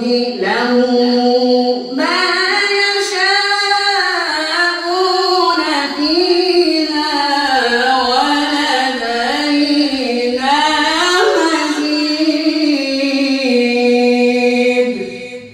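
A male qari reciting a verse of the Quran in melodic tajwid style: one long, ornamented phrase whose pitch winds up and down, fading out near the end.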